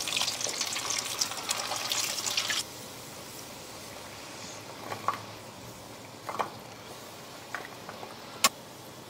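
Gatta frying in hot ghee in a steel kadhai: a dense crackling sizzle that cuts off suddenly about two and a half seconds in. A few faint light knocks follow.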